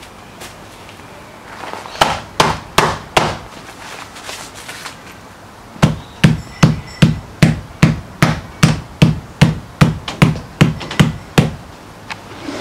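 A small hammer whacking a glued leather Saltwater sandal sole and strap ends against the sole to set the glue bond, the sandal resting on grass. There are four loud strikes about two seconds in, then from about six seconds a steady run of about fifteen blows, two or three a second.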